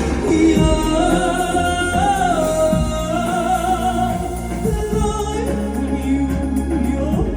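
Stage-show music: a singer holds long, wavering notes over a steady instrumental accompaniment.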